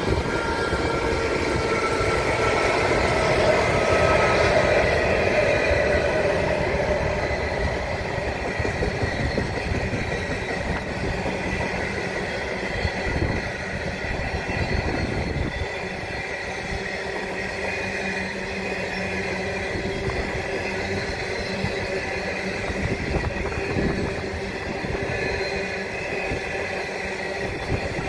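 The Ghan passenger train passing close by: its two NR class diesel-electric locomotives are loudest in the first few seconds, then a long string of stainless-steel passenger carriages rolls past with steady wheel-on-rail noise and occasional faint clunks.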